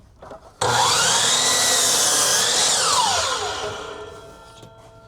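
A power tool's electric motor starts suddenly, runs at speed for about two seconds, then winds down with a falling whine and fades out.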